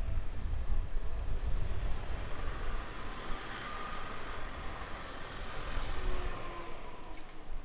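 Small truck driving past close by, its engine and tyre noise swelling and then easing, over steady street noise.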